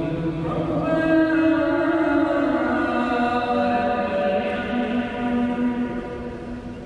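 An imam's chanted Quran recitation carried over the Masjid al-Haram loudspeakers: one male voice drawing out long, slowly shifting melodic notes.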